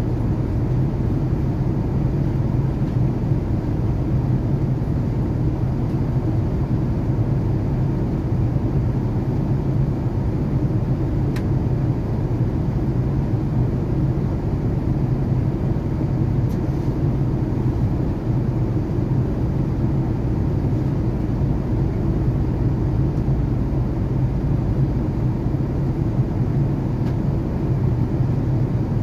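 Steady cabin noise of an Airbus A380 cruising at about Mach 0.83: an even, low rumble that holds unchanged throughout.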